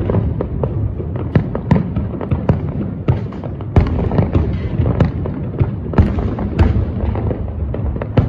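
Fireworks display: a rapid, irregular string of bangs from bursting aerial shells, several a second, over a continuous low rumble.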